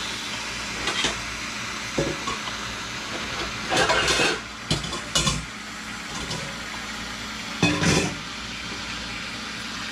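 Kitchen sounds: a steady sizzling hiss with a few irregular knocks and clatters of utensils, the loudest cluster a few seconds in and another near the end.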